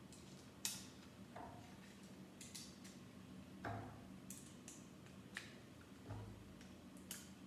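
Faint, scattered clicks and light plastic knocks of Lego pieces being handled and pressed together, about ten over several seconds, two of them with a duller knock.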